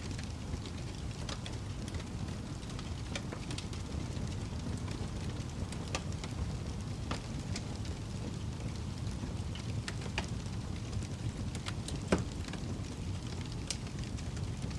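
Wood fire crackling: a steady low rumble with irregular sharp pops and snaps, one louder pop about twelve seconds in.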